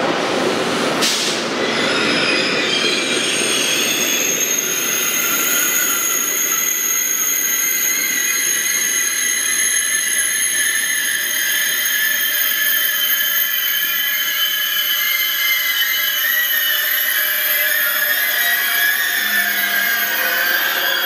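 Thalys high-speed train rolling slowly along an underground station platform, its wheels squealing in several high, steady tones over the rolling rumble. There is a brief clunk about a second in.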